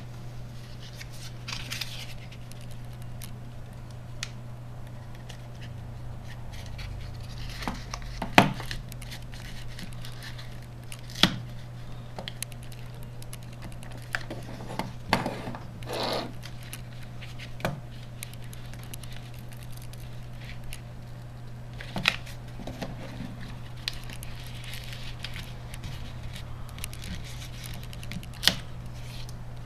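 Plastic housing of a BlackBerry Curve 8520 phone being pried apart by hand: a handful of sharp clicks and snaps as the casing clips give way, scattered between quieter scraping and handling rustle, over a steady low hum.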